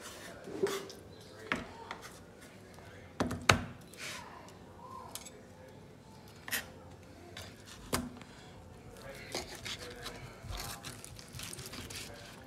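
Steel knife and carving fork knocking and scraping on a wooden cutting board as a grilled T-bone steak is carved. There are a few scattered knocks, the loudest a few seconds in, and a busier run of small scrapes near the end.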